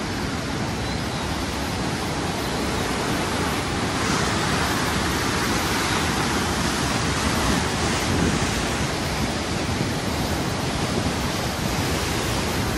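Koshi River in flood rushing through the open sluice gates of the Koshi Barrage: a steady, even rush of fast-flowing water.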